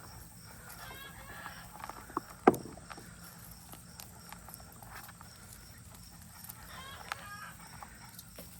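Handling noises from pulling dried potato plants out of a growing pot: rustling of dry stems and soil with scattered light knocks, and one sharp knock about two and a half seconds in.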